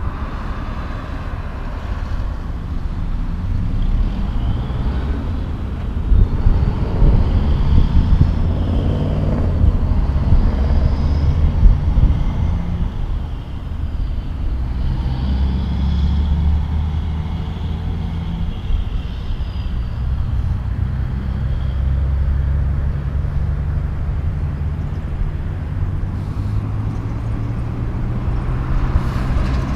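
Heavy diesel truck engine running at low speed, a deep steady rumble whose pitch steps up and down a few times.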